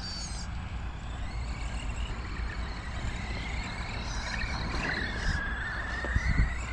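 Tamiya Rock Socker RC crawler's electric motor and gearing whining as the truck creeps up over a log, the pitch wavering with the throttle and climbing near the end. A couple of light knocks about six seconds in, as the tyres climb the wood.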